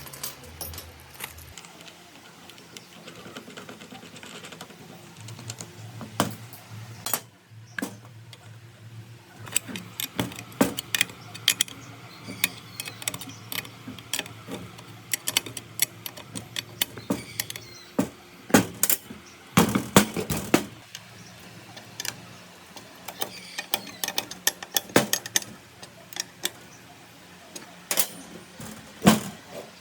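Irregular metallic clicks, taps and knocks of small parts and hand tools being handled and fitted, over a faint steady low hum through the middle.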